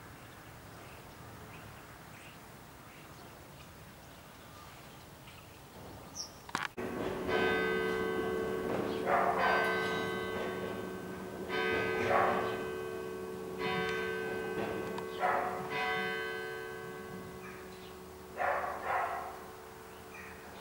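Church bell tolling: repeated strokes about every one and a half to two seconds, each one's hum ringing on under the next. It starts suddenly about seven seconds in, after quiet open-air background.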